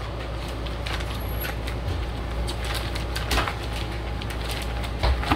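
Plastic vacuum-sealer bag crinkling and crackling as gloved hands work a piece of frozen meat into it, with a couple of louder crackles near the middle and end. A steady low hum runs underneath.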